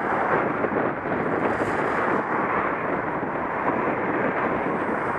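Steady wind noise rushing over a bicycle-mounted camera's microphone while riding along the road, with the passing car's tyres and engine lost in it.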